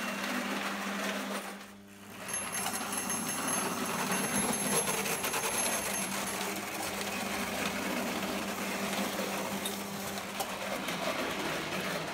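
Prewar Lionel O gauge tinplate train running on three-rail track. Its motor and wheels make a steady mechanical clatter over a constant low hum. The sound drops away briefly about two seconds in, then carries on.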